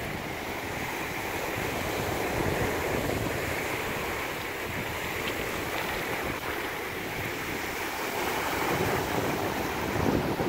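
Ocean surf breaking and washing up onto a sandy beach, with wind buffeting the microphone.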